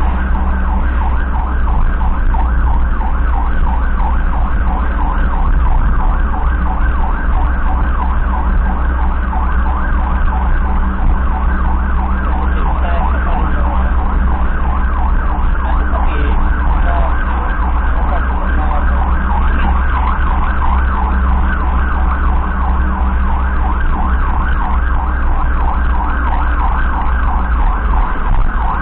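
Electronic emergency siren wailing continuously with a rapid warble, over the steady low rumble of the vehicle's engine and road noise heard from inside the cab.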